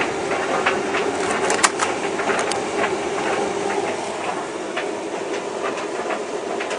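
Tumble dryer running with a load of towels: a steady hum from the motor and turning drum, with irregular light clicks and knocks as the load tumbles.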